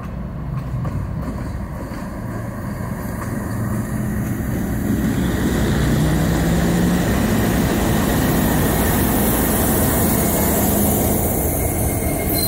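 Diesel locomotive approaching and passing close: a steady engine drone with low tones, swelling about five seconds in into a louder rumble with a hiss of steel wheels on rail.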